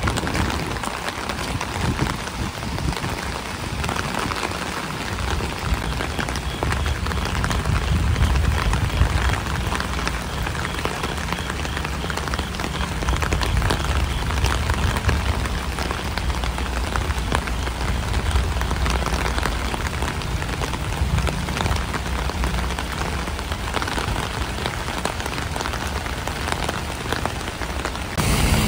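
Steady rushing noise of rain and a flooded creek's fast brown water, with an uneven low rumble underneath.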